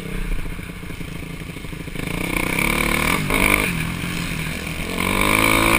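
Dirt bike engine running under the rider on a trail, held low for a couple of seconds, then revving up. There is a quick rev about three seconds in and the engine picks up again near the end.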